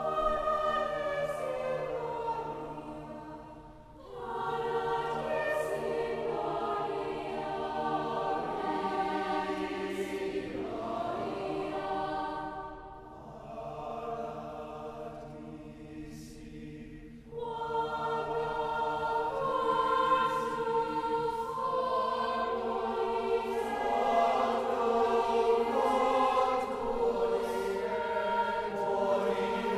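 Mixed school choir singing a slow piece of sustained chords. The sound thins briefly about four seconds in and again for several seconds in the middle, then the full choir comes back in louder.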